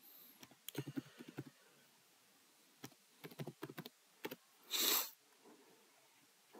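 Computer keyboard keys clicking in two short runs of typing. A brief hiss follows about five seconds in, louder than the keystrokes.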